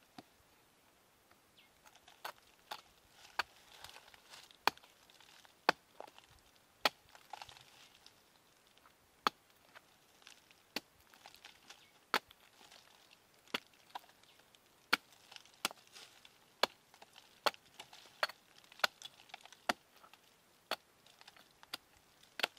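Hatchet chopping into a cashew tree trunk: a series of sharp wooden blows, roughly one a second, starting about two seconds in.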